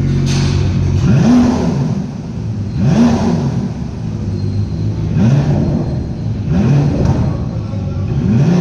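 Pagani Huayra BC Roadster's twin-turbo V12 being revved in about five short blips a second or two apart, each rising and falling in pitch.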